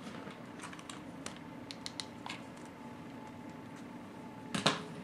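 Hands handling craft materials while tying a string: a scatter of light taps and clicks, then one louder, brief rustle about four and a half seconds in.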